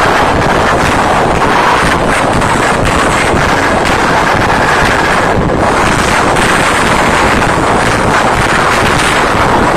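Arena crowd screaming continuously, loud enough to overload a phone's microphone into a steady, distorted noise.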